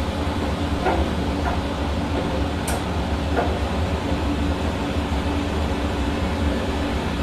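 Hair dryer running steadily: a continuous blowing whir with a low hum underneath, and a few faint ticks in the first few seconds.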